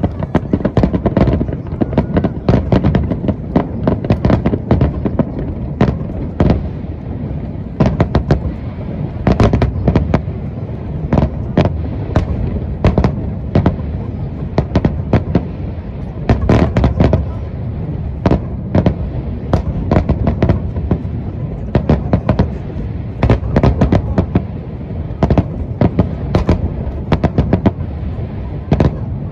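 Aerial firework shells bursting in rapid, overlapping succession: many sharp cracks each second over a continuous low rumble of booms echoing across the sky.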